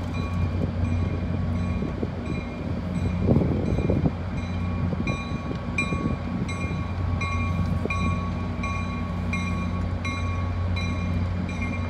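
Railroad crossing warning bell ringing in an even, rapid rhythm of about two strikes a second, over the low steady drone of a nearby train.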